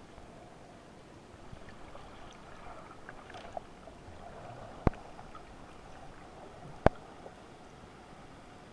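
Underwater sea ambience from a camera housing: a steady hiss with faint crackling and a faint hum, broken by two sharp clicks about two seconds apart.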